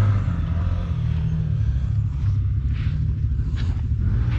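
CFMoto UForce 1000 side-by-side's V-twin engine idling steadily, a low even rumble.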